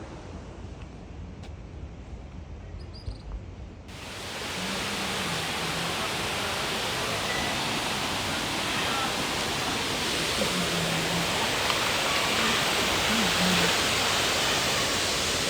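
A quiet stretch with low rumble on the microphone, then about four seconds in, a sudden switch to the loud, steady rush of a waterfall close by. Faint voices show through it now and then.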